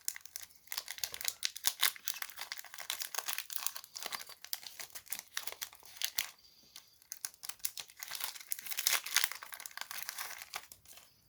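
Foil booster-pack wrappers crinkling and rustling as they are handled and opened, in two long bouts with a short lull about six seconds in.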